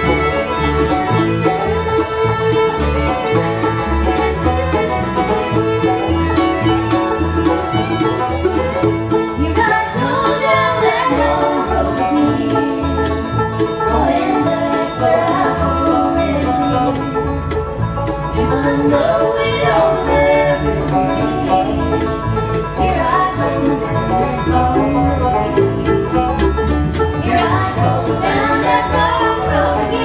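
Live bluegrass band playing: fiddle, mandolin, banjo, guitar and upright bass. A fiddle lead opens it, and about ten seconds in three voices join in close harmony singing over the band.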